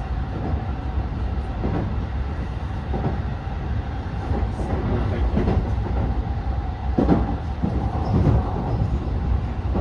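Running noise of a Keikyu New 1000 series train heard from aboard: a steady low rumble of wheels on rail, with several clacks as the wheels pass over rail joints, the loudest about seven seconds in.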